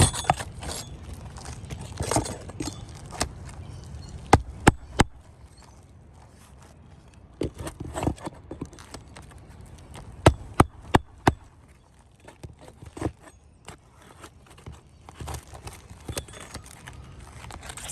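An asphalt shingle being fitted into a repair gap on a roof: rustling and scraping of the shingle, with sharp knocks in quick groups of two to four, as in hand-nailing roofing nails.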